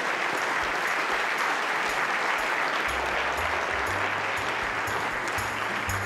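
Audience applauding steadily. About three seconds in, low bass notes of music start beneath the clapping.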